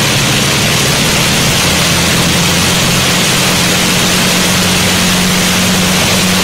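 Avro Lancaster's Rolls-Royce Merlin V12 piston engines running on the ground with propellers turning: a steady deep drone with a constant hiss over it.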